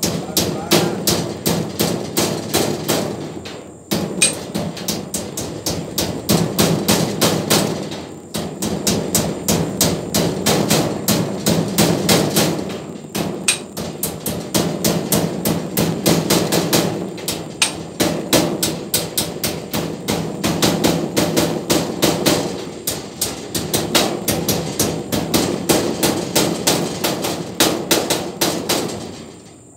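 A hammer striking the steel frame of a welded-wire farrowing pen panel in fast, steady blows, about five a second, in long runs with brief pauses between them.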